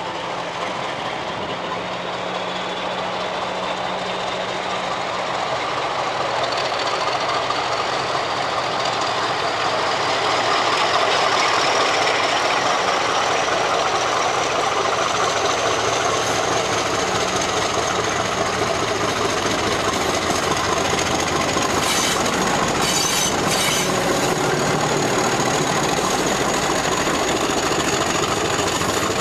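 A British Rail Class 50 diesel locomotive, its English Electric 16-cylinder engine working hard as it pulls a train away and passes close by. The engine grows louder over the first ten seconds and then holds, with a high whine that climbs slowly in pitch. A few sharp wheel clacks come over the rail joints about two-thirds of the way through.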